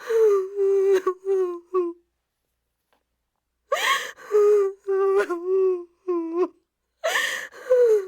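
Infant crying hard in bursts: three spells of wailing cries with gasping in-breaths, separated by gaps of silence of about one and a half seconds.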